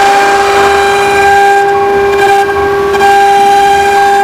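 CNC wood router's spindle running with a steady, loud high whine while its bit engraves into a wooden board, with a rough cutting noise under the tone.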